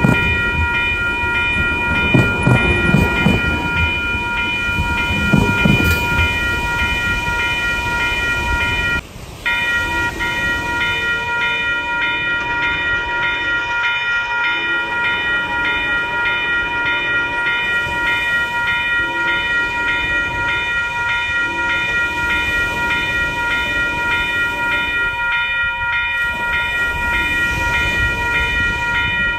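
Railroad crossing warning bell ringing steadily as a train passes, rumbling with knocks from the rails at first. After a brief drop in the sound about nine seconds in, the train horn sounds a series of long and short blasts over the bell.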